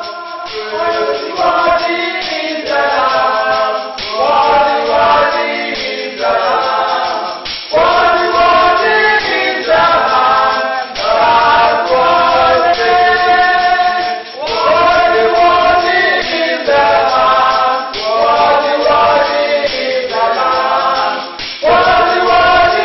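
A choir singing in harmony, in phrases a few seconds long with brief dips between them, with no drum beat.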